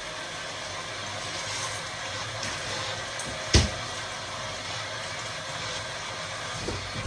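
Kitchen tap running as hands are washed, a steady rush of water that stops near the end, with one sharp knock about halfway through.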